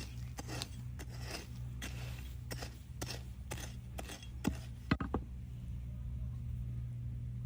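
Short clicks and scrapes from hands working with gardening things while planting beans, a few a second, ending with two louder knocks about five seconds in. A steady low hum runs underneath.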